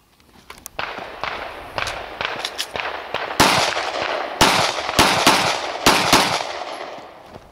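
Glock pistol fired in quick strings of shots, fainter at first and louder from about three seconds in, where shots land roughly every half second to a second, each followed by a short echo.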